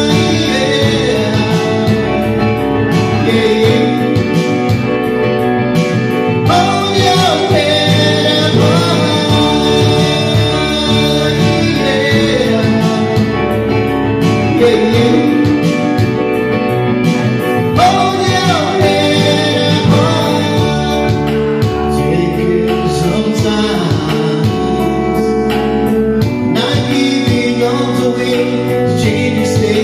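A man singing into a microphone over accompaniment with guitar, the voice coming and going between phrases.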